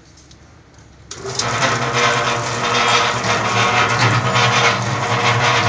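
Electric motor of a chain-driven half-bag mortar mixer switching on about a second in. The motor, chain drive and turning paddles then run steadily, with a low hum and a constant rattle.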